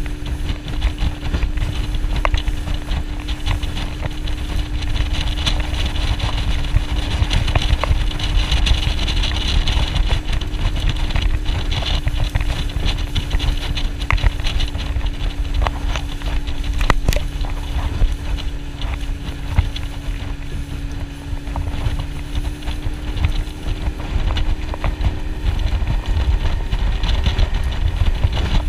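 Outboard motor of a small open boat running steadily underway, a constant drone over wind and water noise, with a few sharp knocks.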